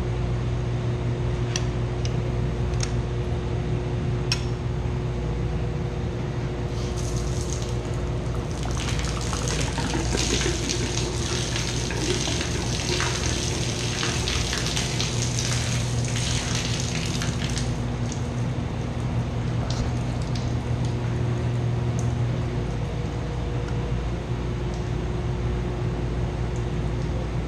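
Chilled-water pump and motor running with a steady low hum. From about a quarter of the way in, water rushes and splashes for around ten seconds, then dies away, leaving the hum. A few light clicks come in the first few seconds.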